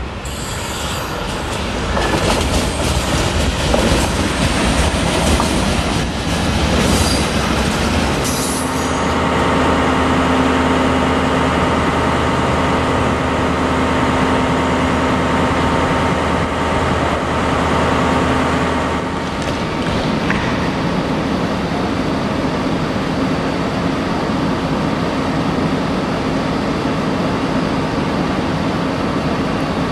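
Danish DSB IC3 diesel multiple unit running in on the rails for the first few seconds. About eight seconds in, a close DB Class 218 diesel-hydraulic locomotive takes over, its V12 diesel engine running with a steady hum. After about ten seconds the engine note gives way to the steady noise of Intercity coaches rolling past on the rails.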